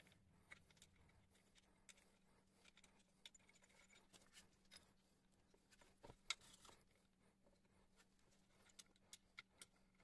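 Faint, scattered small metallic clicks and taps of a hex key and bolts being handled at a Xiaomi M365 scooter's rear wheel mount, with one sharper click about six seconds in.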